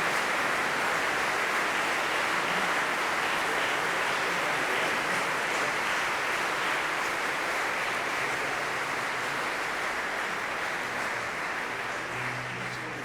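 Audience applauding steadily after a song, dying away near the end.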